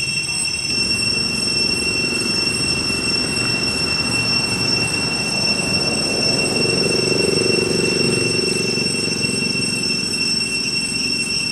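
Steady, high-pitched drone of cicadas, with a rough lower rumbling noise that comes in about a second in and swells around the middle.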